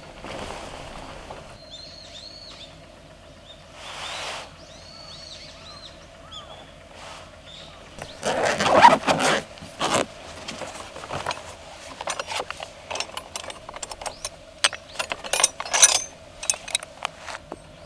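Camping gear being unpacked: a loud rustle and scrape about eight seconds in as a soft gear case is handled, then many quick clicks and metallic clinks as tools and pegs are rummaged in a mesh-lined bag. Birds chirp in the first few seconds, over a faint steady hum.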